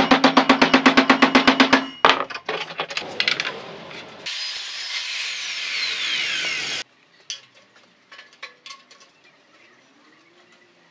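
Rapid hammer blows on a steel bar clamped in a bench vise, about ten a second, stopping about two seconds in. Then a power saw cutting steel rod for about two and a half seconds with a falling whine, cut off abruptly, followed by a few light metal clicks.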